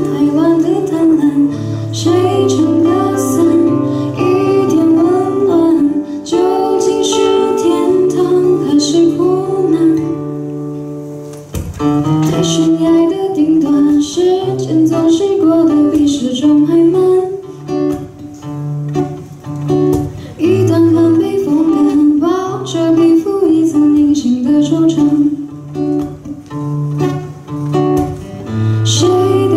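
Acoustic guitar fingerpicked, with plucked bass notes under a melody, accompanying a woman singing into a microphone. The music drops briefly about eleven seconds in, then carries on.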